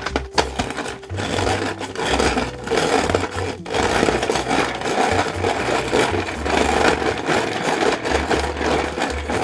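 Hand-cranked ice shaver grinding ice into shaved ice: a continuous rasping, scraping crunch as the blade shaves the block, with a short break about three and a half seconds in.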